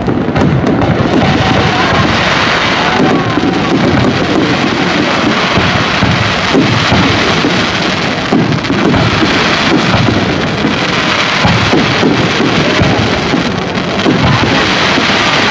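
Fireworks display: many shells bursting in quick succession, making a dense, continuous crackle and rumble with no breaks.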